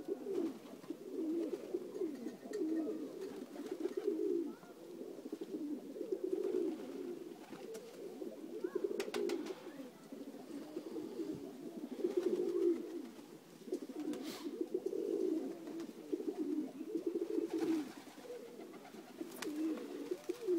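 A flock of domestic pigeons of the Macedonian Dunek breed cooing, many birds overlapping in a continuous low warbling chorus.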